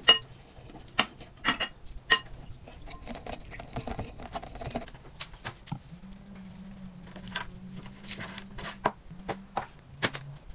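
Raw chicken pieces and utensils being handled on a wooden board and in stainless steel trays: scattered sharp taps and clicks with quieter handling noises between them.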